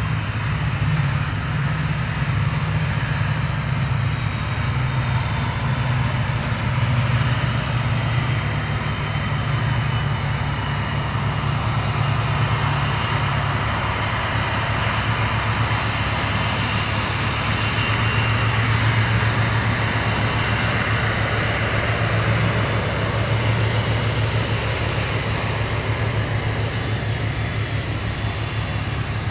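Boeing 747 jet engines running: a steady deep rumble with a thin high whine on top, swelling slightly about midway.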